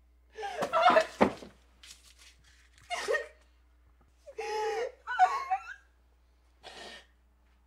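A woman's wordless, distressed vocal sounds: several short moaning and whimpering cries with gasps between them, with a sharp click about a second in.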